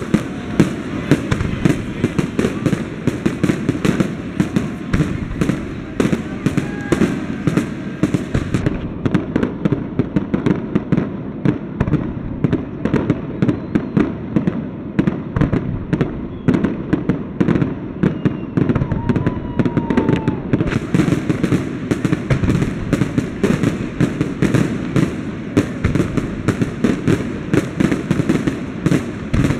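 Fireworks display: a dense, continuous barrage of aerial shell bursts and crackling, several sharp bangs every second.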